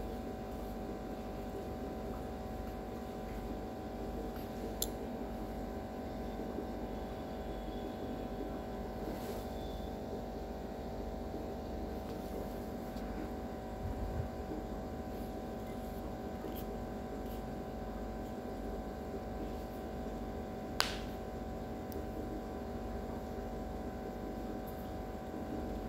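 A steady low hum with two faint sharp clicks, one about five seconds in and one near twenty-one seconds.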